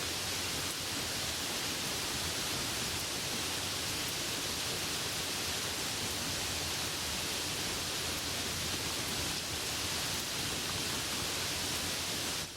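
Steady heavy rain, a dense even hiss, dropping suddenly to a quieter level at the very end.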